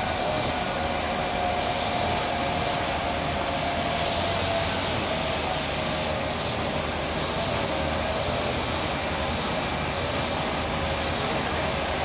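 Mobile crane's engine and hydraulics running steadily while lifting a heavy load, with a steady whine that sinks slightly in pitch and a recurring hiss.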